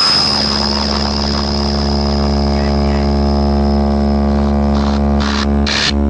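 Sound-check track through a DJ sound system: a deep, steady bass drone with a buzzing stack of overtones, held for about five seconds, then broken into short pulsing hits near the end.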